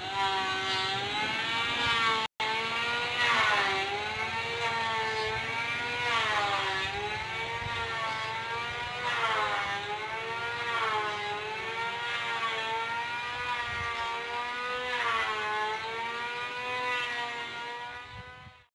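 Engine of the vehicle carrying the camera, running as it drives along a rough dirt road, its pitch rising and falling with the throttle. The sound drops out briefly about two seconds in and cuts off suddenly near the end.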